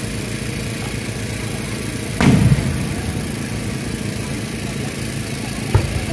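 Fireworks shell bursting: a deep boom about two seconds in that rings on briefly, then a shorter, sharper thud near the end, over a steady low background rumble.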